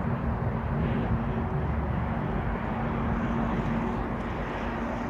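Boat engine running steadily, a constant low drone with a held hum, under rumbling wind on the microphone.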